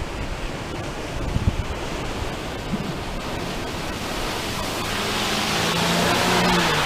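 A steady rushing noise, then a vehicle approaching and passing: a low engine hum and a swelling tyre hiss, loudest about six seconds in.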